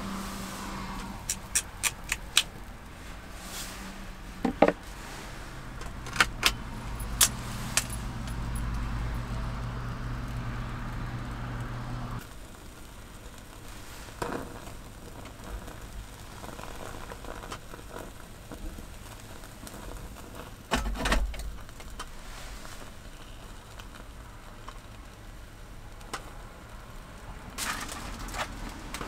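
Scattered small metallic clicks and clinks around a folding pocket stove burning solid fuel, then a heavier knock as a ceramic donabe clay pot is set onto the stove's wire rack. A low steady hum runs for several seconds in the middle and stops abruptly, and there is cardboard handling near the end.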